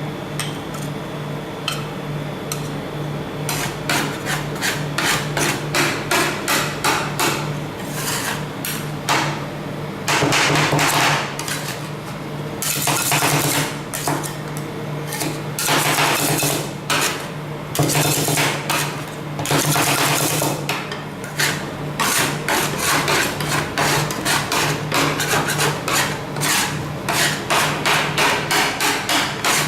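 Metal spatulas rapidly chopping and scraping on the steel plate of a rolled ice cream pan: quick runs of sharp taps, several a second, broken by longer scrapes, over a steady low hum.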